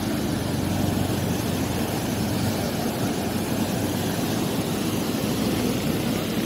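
Rain-swollen, muddy river water rushing and churning where it pours over a drop: a steady, unbroken rushing noise weighted toward the low end.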